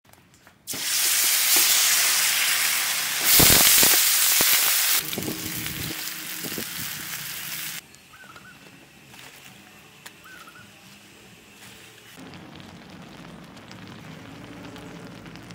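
Water sizzling and hissing hard in a hot wok, loudest a few seconds in, then easing off. It cuts off suddenly about eight seconds in, leaving a much quieter stretch.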